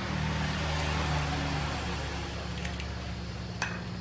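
A steady low mechanical hum under an even hiss, with a single sharp click about three and a half seconds in.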